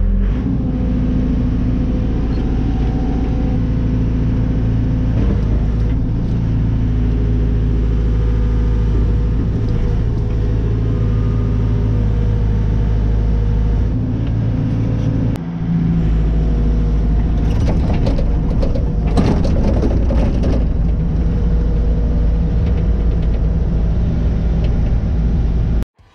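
Komatsu PC75UU-2 mini excavator's diesel engine running steadily under load, heard from inside the open cab while the machine is worked on its new travel pedals. There is a short dip about halfway through, and a spell of rattling and clanking a few seconds later.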